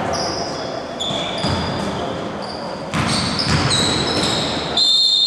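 Basketball game on a hardwood gym floor: sneakers squeaking in short high chirps, a ball bouncing, and players' voices ringing in the large hall. A louder high squeal holds near the end.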